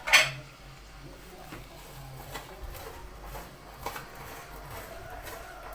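Kitchenware clattering: one sharp, ringing knock right at the start, then a few faint taps and clicks.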